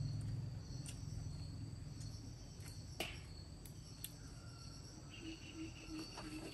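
Crickets chirping steadily and faintly, with a few sharp clicks; the loudest click comes about three seconds in.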